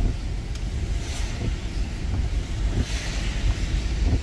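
Car driving on a wet road in the rain, heard from inside the cabin: a steady low road rumble with tyre hiss, and two brief swishes about a second and three seconds in.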